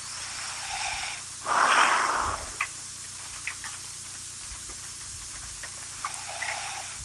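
A sleeping woman snoring: a soft breath in, then one loud, rough snore about a second and a half in, followed by a few small clicks and a quiet pause before the next soft breath starts near the end.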